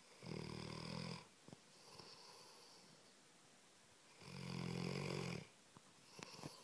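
Labrador dog snoring in deep sleep: two loud, buzzy snores about a second long and about four seconds apart, with a softer breath between them and a few faint clicks near the end.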